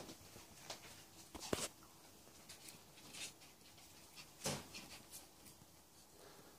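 A Bichon Frisé puppy and a ferret play-wrestling on a bedspread make faint scuffling and rustling with scattered short, soft sounds. The loudest comes about four and a half seconds in.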